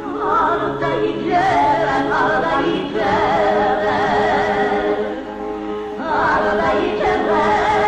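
Music: a song with voices singing wavering, vibrato melody lines over a steady held note.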